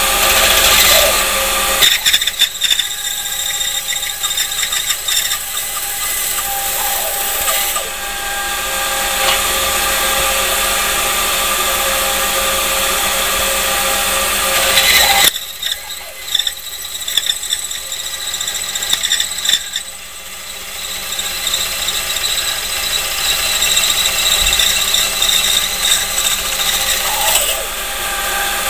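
Bandsaw running and cutting veneer off the back of wooden pieces: a steady machine whine with several high tones. It changes abruptly about halfway through.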